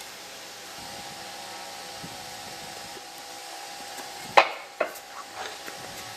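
Raised access floor panel set down onto its metal stringer frame: one sharp clack about four seconds in, a smaller knock half a second later, then a few light taps as it settles. A faint steady hum runs underneath.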